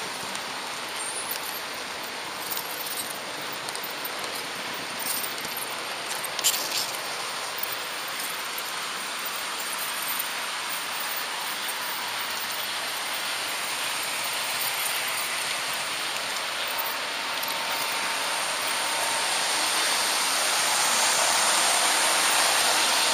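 H0-gauge model train running along its track: a steady rolling rattle of wheels on rails with scattered light clicks, one sharper click about six and a half seconds in. The sound grows louder toward the end.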